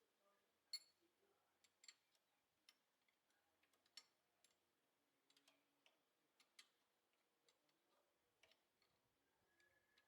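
Near silence broken by faint, irregular small clicks and taps, a dozen or so scattered through.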